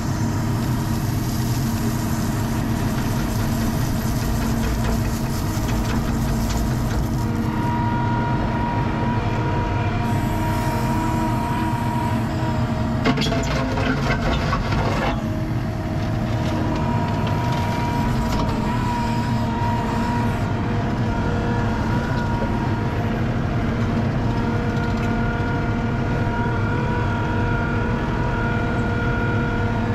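Compact loader's diesel engine running steadily with a hydraulic whine, heard from inside the operator's cab. Between about 13 and 15 seconds in, a short scraping clatter as the bucket digs into a gravel pile.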